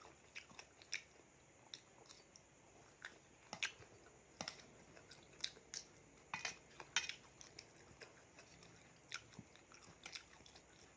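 A person chewing and eating a spicy Thai seafood salad close to the microphone: faint, irregular wet mouth clicks and smacks, a few every second.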